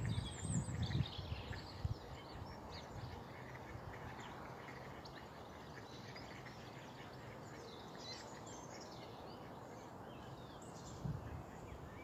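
Waterbirds and other birds calling: duck quacks and many short higher chirps scattered throughout, over a faint steady outdoor hiss. A few low thumps hit the microphone in the first two seconds.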